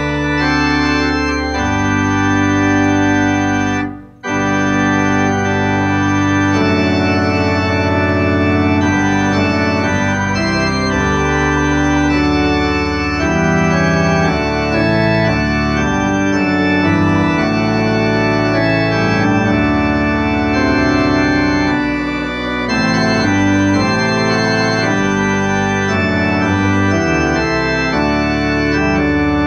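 Church organ playing slow, sustained chords, with a brief break about four seconds in before it resumes.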